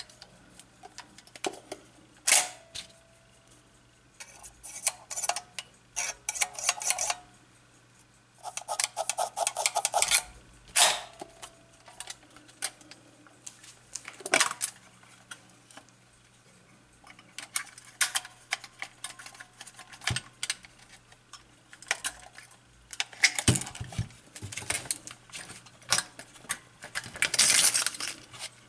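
Kiev 60 medium-format SLR body worked by hand: scattered bursts of rapid mechanical clicking and ratcheting from its controls, with several loud single clicks among them. Low handling knocks come near the end.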